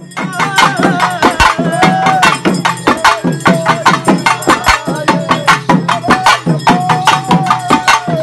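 Traditional festival drumming: fast, loud drum strikes several times a second in a steady rhythm, with a wavering melody line held over it.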